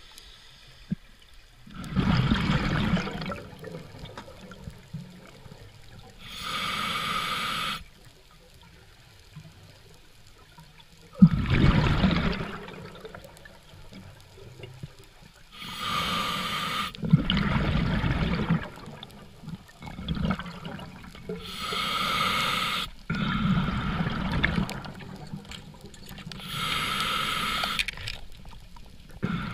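Scuba diver breathing through a regulator underwater: a hissing inhale through the demand valve alternates with a low, bubbling rush of exhaled air, about four breaths, one every five to six seconds.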